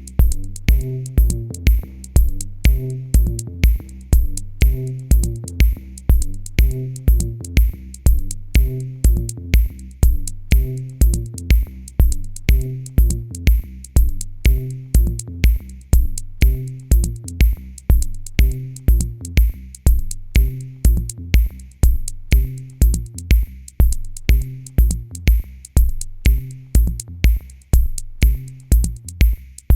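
Electronic music with a steady drum-machine beat, about two low kick drums a second, over short repeating synth notes.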